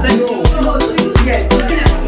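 Afrobeat-style music with a steady beat of deep bass kicks and sharp percussion.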